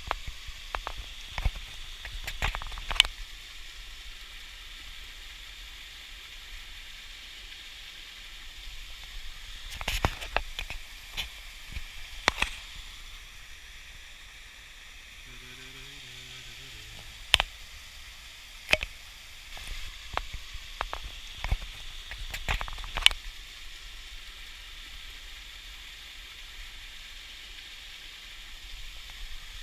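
A small forest creek trickling over low rocky cascades, a steady rushing hiss, with sharp clicks and knocks every few seconds.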